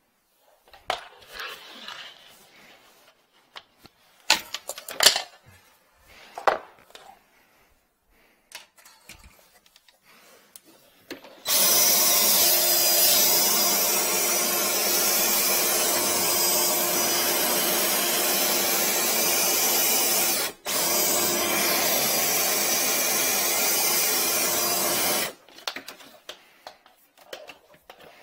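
Flex-shaft drain-cleaning machine running: a drill-driven flexible cable spins in the kitchen sink drain line to clear a clog. It starts about eleven seconds in, runs steadily for about fourteen seconds with one very brief stop, then cuts off, with scattered clicks and knocks from handling the cable before and after.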